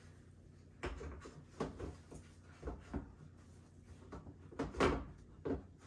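Knocks and scrapes of a column speaker section being fitted into the top of its subwoofer base, about eight short handling sounds in a row. The loudest comes near the end.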